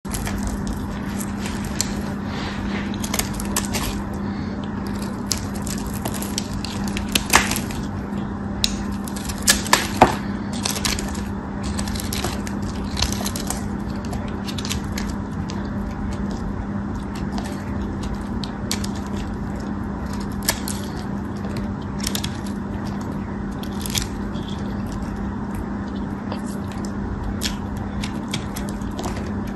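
A pointed craft knife cutting crumbly bar soap into small cubes, with crisp clicks and crackles as the blade snaps through and the pieces break off, a few much louder snaps a third of the way in. A steady low hum runs underneath.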